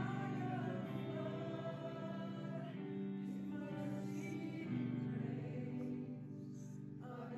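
Background music: a Christian worship song with sung vocals over long-held chords.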